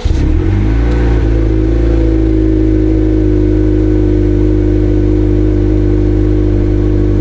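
A90 Toyota Supra's engine firing up, flaring briefly as it catches, then settling into a steady idle.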